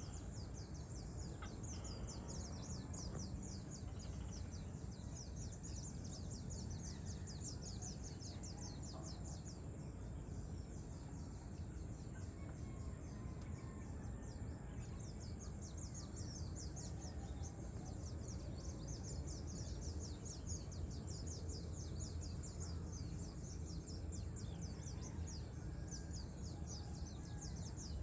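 Outdoor ambience: a continuous chorus of rapid, high-pitched chirps, thinning a little near the middle, over a steady low rumble.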